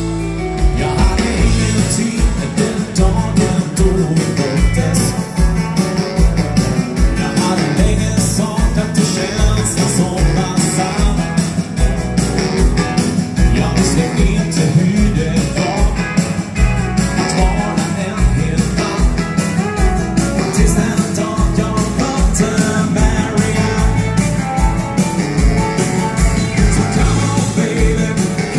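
Live dance band playing an upbeat rock'n'roll number through a PA: drum kit keeping a steady driving beat under electric guitars, keyboard and baritone saxophone.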